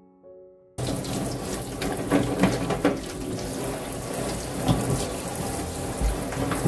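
Faucet spray running hard into a stainless-steel sink while burdock roots are rubbed clean under it, starting suddenly about a second in, with irregular knocks and scrapes of the roots and hands through the splashing.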